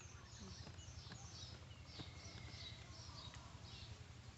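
Faint bird calls: a quick series of short, falling chirps repeated two or three times a second.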